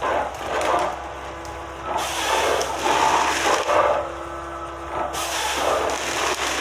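Forestry harvester with a Waratah H414 head working a pine stem: the machine's engine and hydraulics run steadily under repeated swells of hissing and scraping noise as the head grips and processes the stem.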